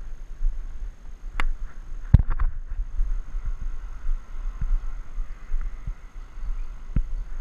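Wind rumbling on an action camera's microphone, with a few sharp knocks. The loudest knock comes a little after two seconds in, followed by a short cluster, and a last one comes near the end.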